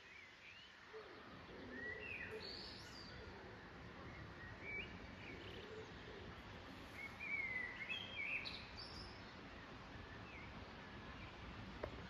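Wild songbirds singing their evening song: scattered chirps and short whistled phrases, busiest about two seconds in and again around seven to nine seconds in, over a faint steady hiss of outdoor background noise. A single sharp click near the end.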